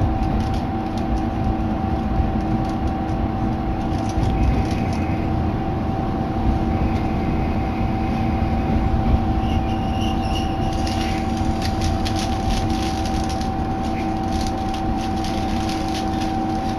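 Diesel railcar of the Hitachinaka Seaside Railway Minato Line heard from inside: a steady engine drone and rumble with a constant hum. A few faint, brief high squeals come and go midway.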